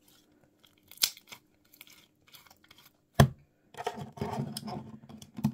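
Homemade glue slime handled by hand: stretched with scattered small clicks and pops, a single sharp pop a little after three seconds in, then a run of squelching crackle as fingers press into the heaped slime.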